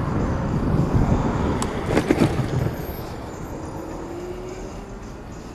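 Wind buffeting the microphone and road rumble from a moving electric bicycle, with a brief rattle of clicks about two seconds in. The rumble eases after about three seconds to a steadier, quieter rolling noise.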